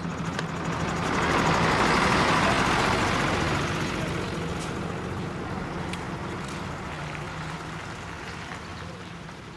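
Bus engine running with a steady low hum. The sound swells to its loudest about two seconds in, then slowly fades as the bus pulls away.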